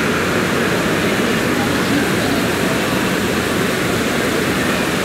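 Steady wash of running and splashing water from splash-pool mushroom fountains, with people's voices mixed in.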